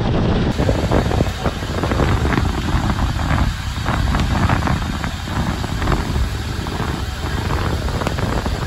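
Wind buffeting the microphone on a moving passenger ferry, over the steady noise of its engine and the wake churning alongside the hull.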